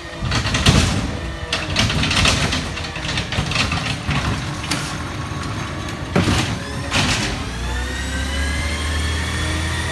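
Garbage truck working: a run of metallic clanks and bangs, then, about three-quarters of the way through, the diesel engine revs up with a rising whine.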